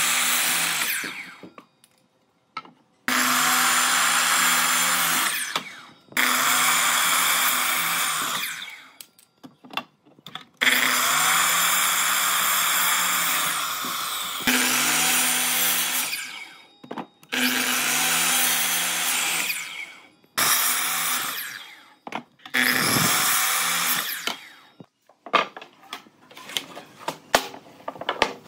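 A handheld electric power tool switched on in about eight short bursts of two to four seconds each, its motor spinning down with a falling whine after each release. Near the end, a few seconds of short, irregular scraping knocks.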